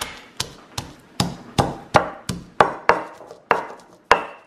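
Stone pestle pounding garlic cloves in a stone mortar: a steady run of sharp knocks, about three a second.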